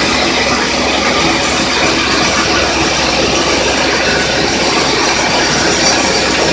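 Portable band sawmill running loud and steady as its blade rips an acacia board fed through it.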